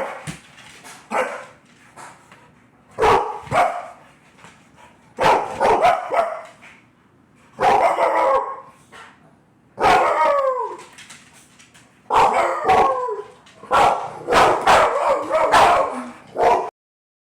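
A dog barking in short clusters of barks about every two seconds, loud and sudden, some barks falling in pitch.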